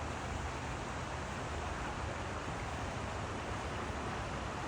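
Steady rushing outdoor noise with a low rumble underneath, even throughout.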